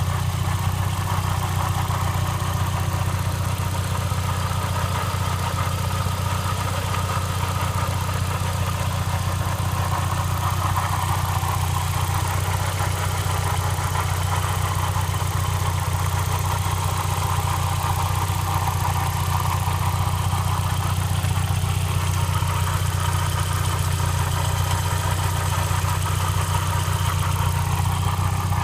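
1999 Volkswagen Passat 1.8T's turbocharged four-cylinder engine idling steadily, with a higher-pitched sound over it that slowly swells and fades. This is the weird noise the owner cannot place.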